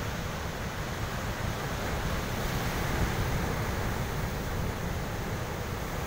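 Ocean surf breaking and washing over shoreline rocks, a steady rush that swells a little about halfway through. A low wind rumble on the microphone runs under it.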